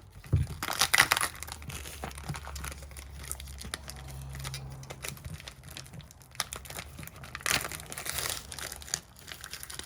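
Plastic packaging crinkling, with small clicks, as parts are handled, loudest about a second in and again near the end.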